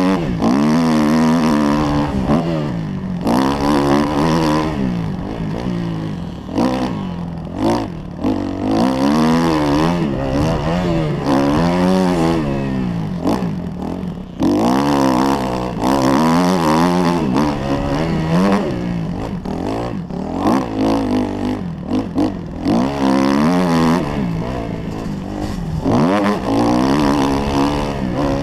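Kawasaki KX 250F's four-stroke single-cylinder engine revving hard under riding load. Its pitch climbs and drops every second or two as the throttle is opened and closed through gear changes, ruts and turns.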